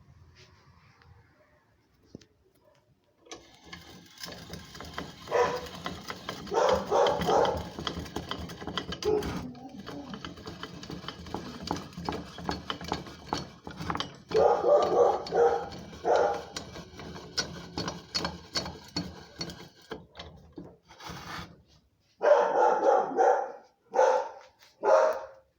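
A dog barking in three bursts of several barks each, over a steady noise that stops shortly before the last burst.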